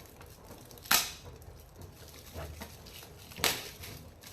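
Gift packaging being torn open: two loud, sharp rips about two and a half seconds apart, with quieter rustling of the wrapping between them.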